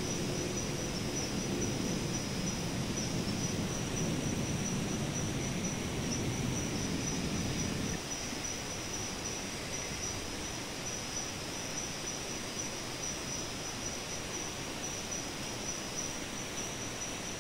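Chorus of forest insects chirring, a steady, slightly pulsing high-pitched tone, over a low rushing noise that drops a little about eight seconds in.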